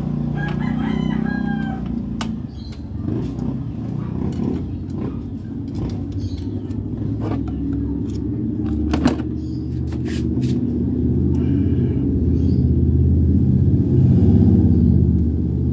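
A rooster crows once near the start over a steady low rumble. Scattered sharp metal clicks come from a hand tool working around a scooter engine's spark plug, the loudest about nine seconds in.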